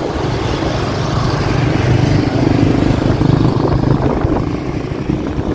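Engine and road noise of vehicles in busy road traffic, a steady low hum that swells louder through the middle.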